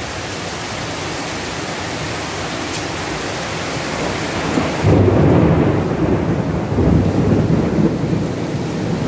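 Heavy rain pouring steadily in a thunderstorm. About five seconds in, a loud low rumble of thunder comes in and the rain's hiss turns muffled.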